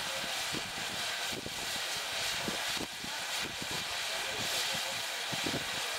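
Wind buffeting the camera's microphone: irregular low thumps and rumble over a steady hiss.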